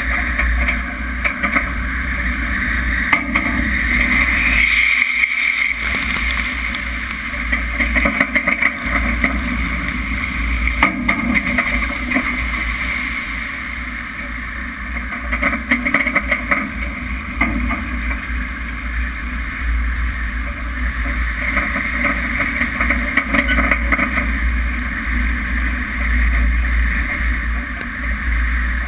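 A ship's bow ploughing through heavy seas: a steady rush of wind and breaking water with a deep rumble, and frequent short splashes and knocks as spray strikes the camera.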